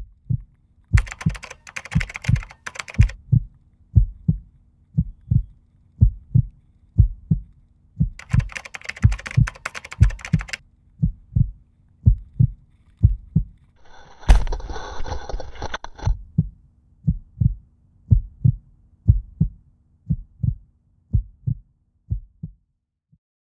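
Heartbeat sound effect: a steady run of low paired beats, with three short bursts of rushing noise laid over it. The beats stop shortly before the end.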